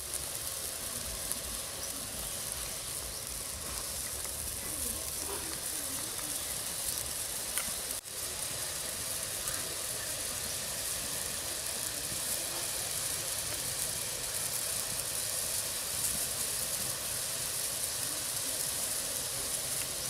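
Water heating in a metal wok over a wood fire, a steady hiss that breaks off for a moment about eight seconds in.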